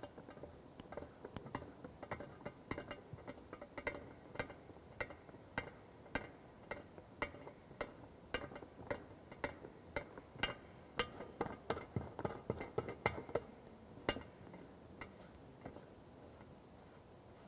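A chrome basin waste being fitted and hand-tightened into a ceramic wash basin: a run of irregular small clicks and clinks of metal against the ceramic, thickest about ten to fourteen seconds in, then dying away.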